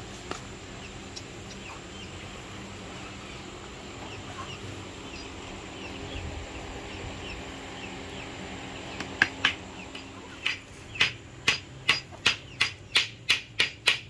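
Hammer striking wood: two blows about nine seconds in, then a run of about a dozen evenly spaced blows that speed up to about three a second, as when driving a nail. Faint chicken chirps and clucks underneath.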